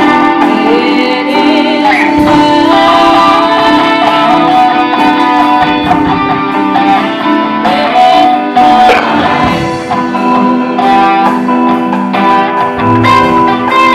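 Guitar-led music playing, with held and sliding notes.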